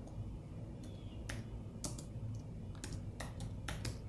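Computer keyboard keys clicking as text is typed: about eight separate keystrokes, irregularly spaced.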